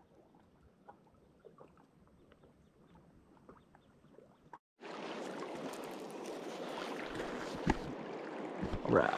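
Faint, quiet riverside ambience with small ticks. After a sudden jump in level, river water lapping at a gravel shore, with wind on the microphone and scattered small clicks.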